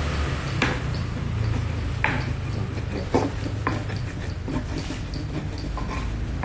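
Scattered clinks, knocks and scraping of a spoon and hands working a fish-paste mixture in metal mixing bowls, over a steady low hum.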